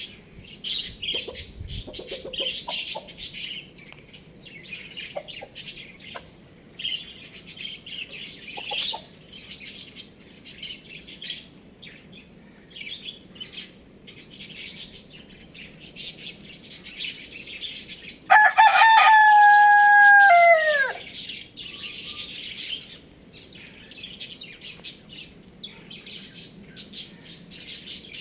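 Rooster crowing once, about two-thirds of the way in: one long, loud crow held level that drops in pitch at the end. Around it, small birds chirp steadily.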